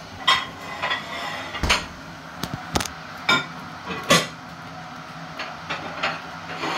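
Dishes and cutlery clattering: plates and utensils knocked together and set down in a series of irregular knocks and clinks, several ringing briefly.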